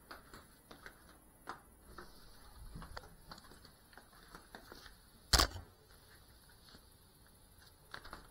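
Faint clicks and rustles of a small FPV whoop drone being handled, with one sharp knock about five seconds in as it is set down on the floor. The motors are not running.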